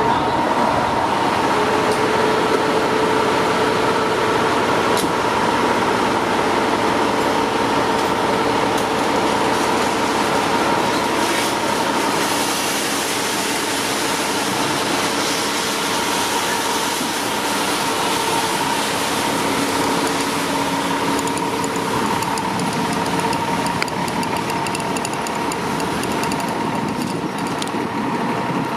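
2008 Seagrave Marauder II fire engine's diesel engine running steadily at idle inside the apparatus bay, a constant hum with a steady whine over it.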